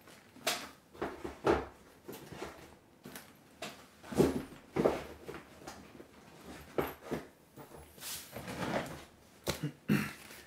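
Irregular handling noises: soft knocks, shuffles and rustles from someone getting up from an office chair and swapping one pair of boots for another.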